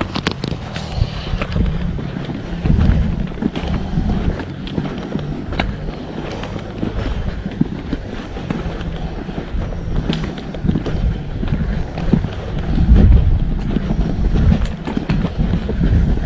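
Footsteps on a hiking trail, with irregular knocks and wind rumbling on the microphone as the camera is carried uphill.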